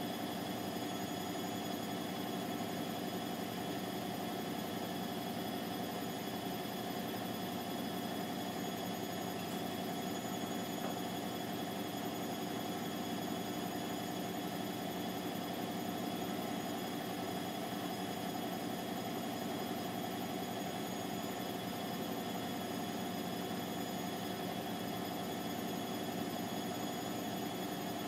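Bosch WVT 1260 front-loading washing machine in its final spin, the drum turning at a steady speed with an even motor whine and hum. The pitch and level hold constant, with no rise or fall.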